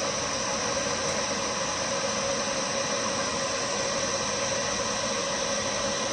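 Steady, even fan noise with a constant hum, unchanging throughout.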